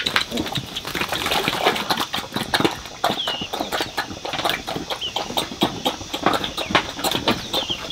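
Rapid, irregular tapping and knocking, with a few short bird chirps about three, five and seven and a half seconds in.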